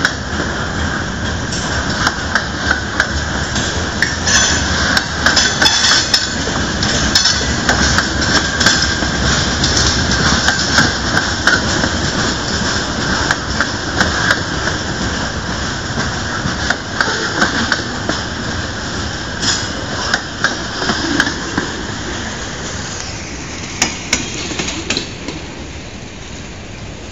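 Freight train of covered hoppers and tank cars rolling past on the rails: a steady rumble of wheels with frequent sharp metallic clanks and clicks. It grows a little quieter near the end.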